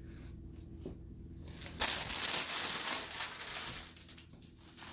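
A crinkly bag of jalapeño chips being handled, a dense crackling crinkle lasting about two seconds from a little under two seconds in.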